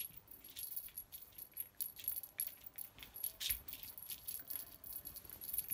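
Jingling cat toy shaken irregularly above a litter of kittens: quick, uneven clinks and rattles.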